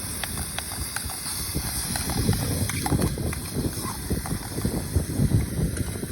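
Wind buffeting the microphone in uneven gusts, with a few faint clicks scattered through it.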